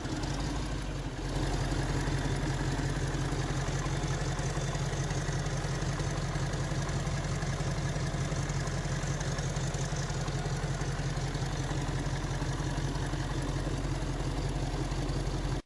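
Diesel truck engine idling with a fast, even clatter, growing louder about a second in and then running steadily.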